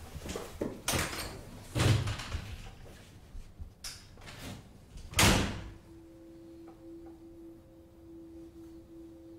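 An interior door being opened and shut: several knocks and clunks, with the heaviest thuds about two seconds in and again about five seconds in, where it closes with a slam. After the slam a steady low held tone of background music comes in.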